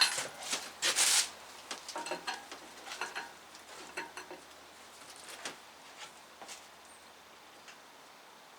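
Knocks, clicks and scraping from a five-cylinder engine being worked down into a Hummer H3's engine bay against surrounding parts: a sharp knock at the start, a louder scrape about a second in, then scattered lighter clicks that die away after about five seconds.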